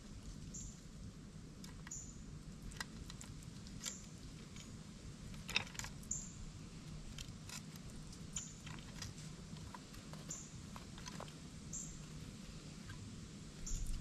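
Quiet backyard ambience: a short high chirp recurs every second or two over a faint low hum. Scattered light clicks and taps come from a squirrel working at a wooden nut feeder, the sharpest about halfway through.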